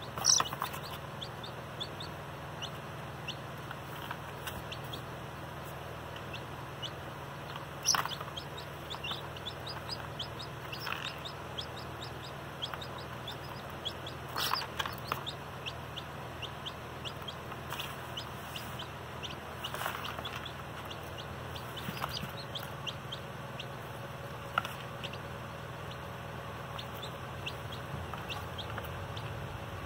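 Baby chicks peeping: a continual string of short, high-pitched, falling cheeps, with a few louder cheeps near the start and about 8, 14 and 20 seconds in.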